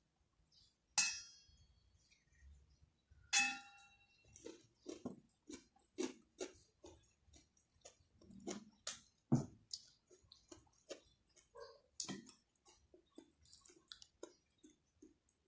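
Close-up eating sounds: two sharp ringing clinks of a utensil against a bowl, about one and three seconds in, then a long run of short wet chewing clicks, about two a second.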